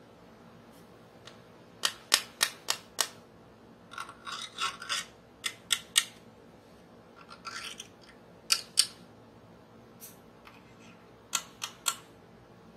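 A metal screwdriver tip tapping and scraping on the plastic fairing and winglets of a 1:12 scale diecast Kawasaki Ninja H2R model. It makes sharp clicks in quick runs of two to five, with two short scratchy rubs between them.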